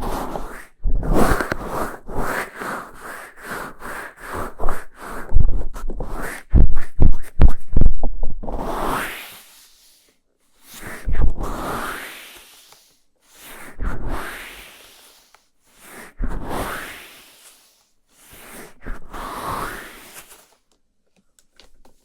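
Close-miked ASMR sounds. First comes scratchy rubbing on the microphone with low thumps. Then five slow breaths into the microphone about two to three seconds apart, each rising in pitch as it swells.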